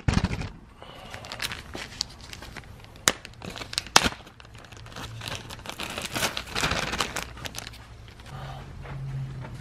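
Small plastic baggies crinkling and rustling as loose screws are bagged by hand. Sharp clicks and ticks come through throughout, the loudest right at the start and at about three and four seconds in.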